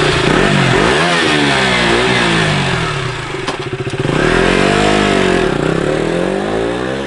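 KTM Duke 200 (BS4 version) single-cylinder engine being revved, its pitch rising and falling through two swells of throttle.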